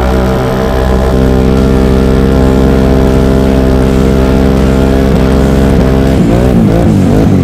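Can-Am Renegade 1000R's V-twin engine running at high, steady revs under throttle, its pitch held flat for about six seconds, then wavering up and down near the end.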